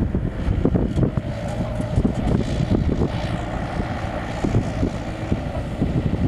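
John Deere 60D mini excavator's diesel engine running under working load as the boom swings across and lowers the bucket, with a steady hydraulic whine for a few seconds in the middle.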